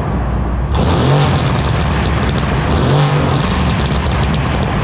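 Mercedes-AMG C63 S (W205) twin-turbo V8 through catless downpipes and an AWE track exhaust, essentially a straight pipe, revved while parked in a concrete garage. A deep idle rumble, then sharp throttle blips about a second in and again near three seconds, with crackling between.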